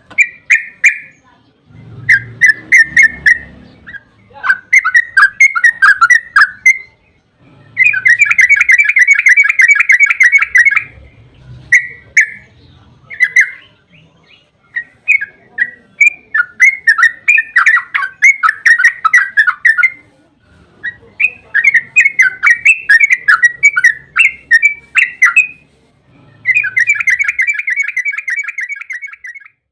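Yellow-vented bulbul singing long, rapid runs of bubbling notes in repeated phrases of one to three seconds with short pauses between them.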